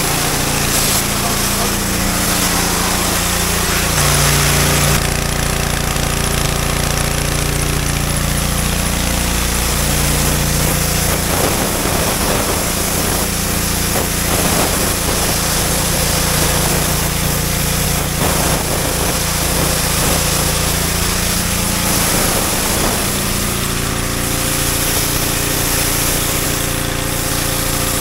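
Pressure washer running steadily, its motor hum stepping in pitch a few times, with the hiss of the water jet blasting the door and concrete.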